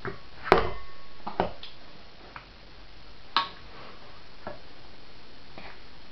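A baby's hands knocking a stainless steel colander about on a high-chair tray: a few sharp metal knocks, the loudest about half a second in with a short ring, and others near one and a half and three and a half seconds, with fainter taps later.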